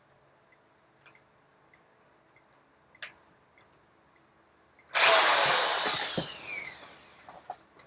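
A click about three seconds in, then about five seconds in an electric drill runs briefly, its whine falling in pitch as the motor slows to a stop.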